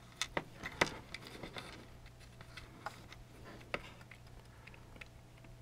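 Small hobby side cutters snipping the plastic tie webbing off HO-scale flex track: several faint, sharp clicks spread out, the clearest a little under a second in and again near four seconds.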